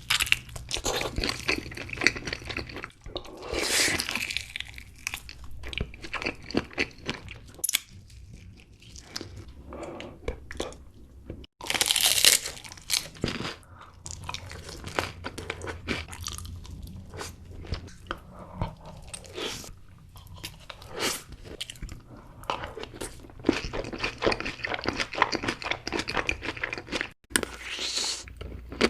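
Close-up chewing and biting of crunchy food, an irregular run of crisp crunches and crackles with louder bites now and then.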